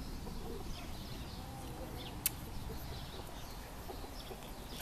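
Faint farmyard animal calls over a steady low rumble of wind on the microphone, with one sharp click a little over two seconds in.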